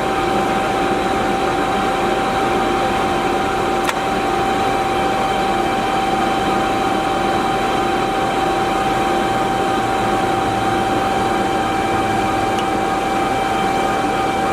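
Large engine lathe running steadily under power, with a constant whine from its spindle drive and gearing. There is one brief click about four seconds in.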